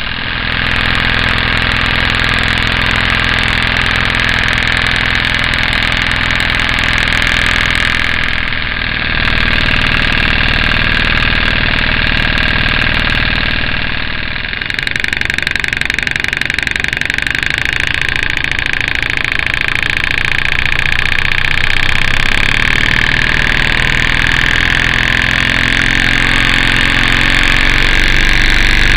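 Stuart Models 10V single-cylinder model steam engine running fast on compressed air: a rapid, steady exhaust beat under a strong hiss of escaping air. The sound shifts abruptly twice, about 8 and 14 seconds in.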